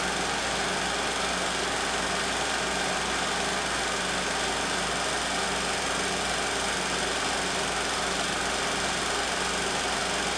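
16mm film projector running, a steady mechanical whirr with no change in pitch or level.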